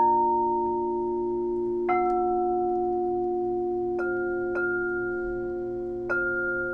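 Crystal singing bowls struck several times, about every one to two seconds, the first strike the loudest. Each strike leaves a long ringing tone, so several pitches sound together over a steady low hum.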